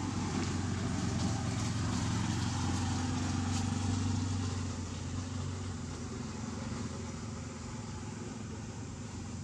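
An engine running in the background, a steady low hum that eases off about halfway through.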